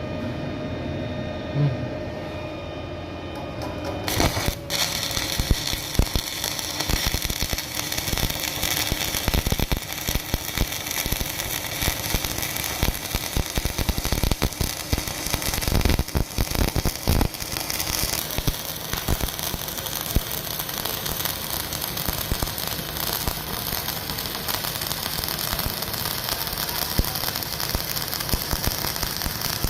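Stick welding arc crackling and sputtering steadily, starting about four seconds in, after a few seconds of steady humming tones.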